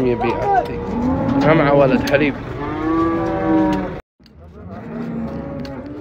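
Cattle mooing: several calls, then one long, drawn-out moo about three seconds in. The sound breaks off for a moment about four seconds in, and fainter mooing follows.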